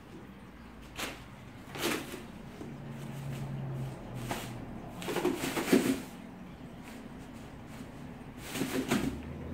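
Thin plastic sheet crinkling and rustling in several short bursts as a cat steps and crouches on it, the loudest bursts a little past the middle.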